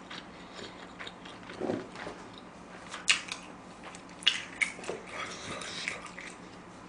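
Close-miked mouth sounds of a person eating spicy chicken feet: quiet chewing with a scatter of separate wet clicks and smacks, and a short low hum about two seconds in.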